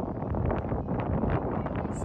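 Wind buffeting the microphone, a dense low rumbling noise, with a few faint short knocks.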